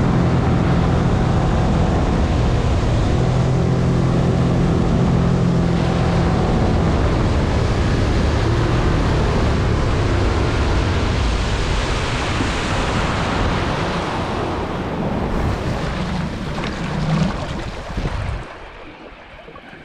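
Outboard motor on a small tinny running under way, with water rushing past the hull and wind buffeting the microphone. Near the end the engine eases off and the sound drops away.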